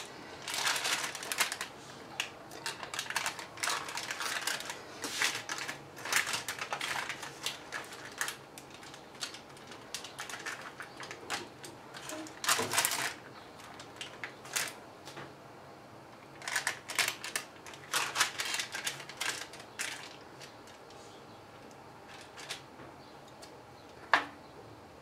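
Baking parchment rustling and crinkling, with a spoon scraping and tapping as cake batter is spread over a lined baking tray, in irregular short rustles and clicks and one sharper click near the end.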